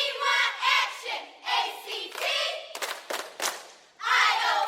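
Short vocal bursts, then a quick run of sharp hand claps or slaps about three seconds in.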